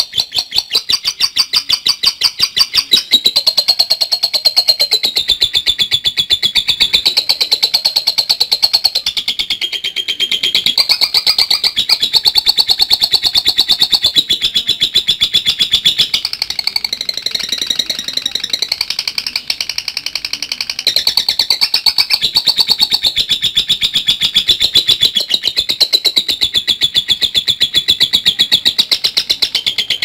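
Fischer's lovebird giving a long, unbroken 'ngekek' chatter: a rapid run of sharp, high-pitched notes, its pitch wavering up and down.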